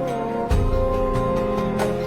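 Background music: soft, tender instrumental with sustained notes, a low bass coming in about half a second in.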